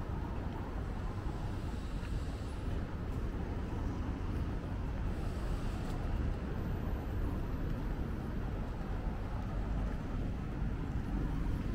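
Steady city street traffic: a continuous low rumble of cars passing on the road.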